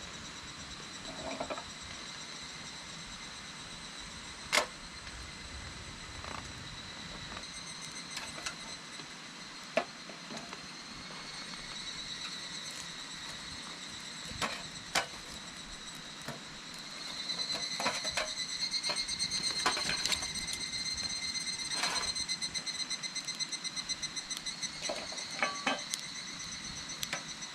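Higurashi (evening cicadas) calling: a high, ringing insect tone that swells into a fast pulsing call about two-thirds of the way in. Scattered sharp clicks and pops sound over it.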